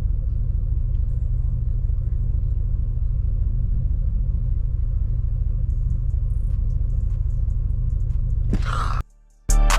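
Background hip-hop beat with the highs filtered away, leaving a steady low bass rumble; near the end a rising whoosh, a half-second drop-out, then the full beat comes back in.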